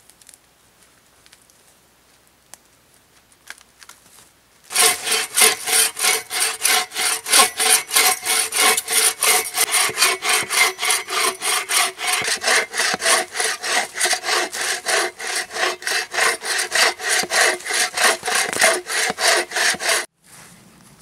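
Folding pruning saw cutting into a log, in quick, even push-pull strokes of about four a second. The sawing starts about five seconds in and stops abruptly about a second before the end.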